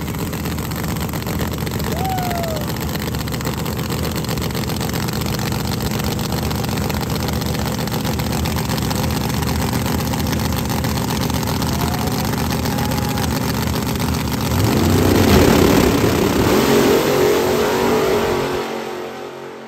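Drag-race engines running at a rough, steady idle, including a split-window Corvette drag car, as the cars stage. About fifteen seconds in, the cars launch at full throttle: the engine noise swells and climbs in pitch for a few seconds, then fades quickly as they pull away down the track.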